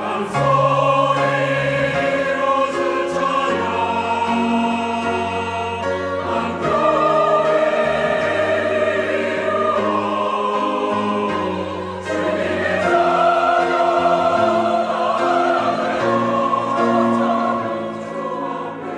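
Mixed church choir of men and women singing an anthem in Korean, holding notes in several parts at once.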